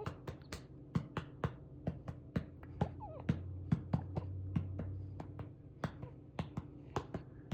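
A hand patting a one-month-old baby's back to bring up a burp: quick, even pats in sets of three, about two to three pats a second.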